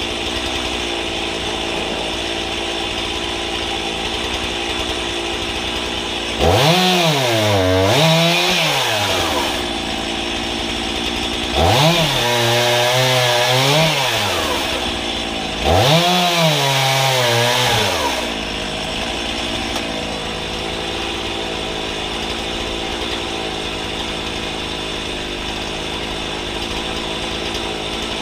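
Two-stroke chainsaw on a homemade guillotine-style firewood rig idling steadily, then revved up three times as it is pulled down through logs. Each cut revs high, dips in pitch partway through as the chain bites into the wood, then drops back to idle.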